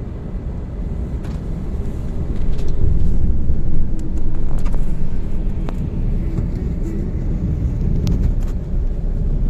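Vehicle on the move: a steady, loud, low rumble of engine and road noise that swells a little from about two seconds in.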